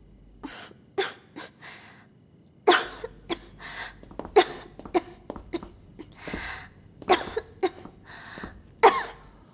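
A woman coughing weakly over and over: about a dozen short coughs in clusters, with breathy gasps between, the coughing of someone ill.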